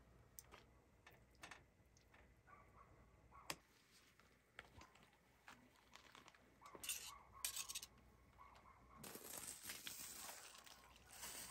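Metal tongs clicking and tapping against a cast-iron pan as food is laid in, with short rustles about seven seconds in. From about nine seconds, liquid pouring steadily from a stainless pot into the pan.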